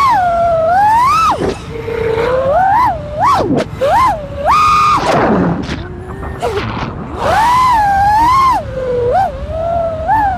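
FPV quadcopter motors whining, the pitch swooping sharply up and down again and again as the throttle is punched and chopped through freestyle moves.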